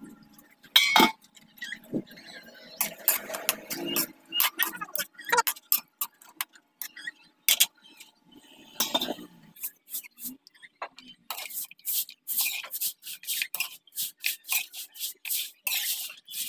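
A stainless-steel pot lid and wok clinking as the lid is handled, with a loud clink about a second in. Irregular sharp clicks and crackles follow, coming thick and fast over the last few seconds.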